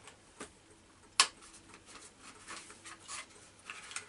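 Small cardboard Junior Mints box being handled and opened by hand: soft rubbing and scraping of cardboard, with a few small clicks and one sharp click about a second in.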